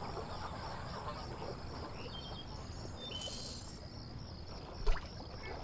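Marsh ambience: insects chirping in an even, pulsing rhythm, with a few short bird chirps. A single sharp knock comes near the end.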